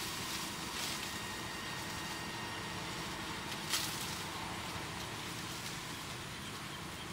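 Steady background hiss and low rumble of outdoor ambience, with faint steady high-pitched tones and a single short click just under four seconds in.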